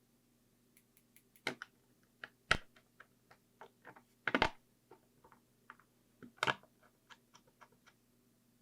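Irregular small clicks and taps of tools and small parts being handled while working on a camera's tripod mount, with a few sharper knocks among lighter ticks.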